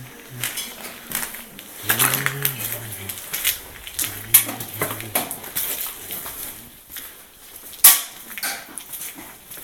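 Irregular clattering knocks of hard objects, with the loudest, sharpest knock about eight seconds in, and a man's voice talking briefly in between during the first half.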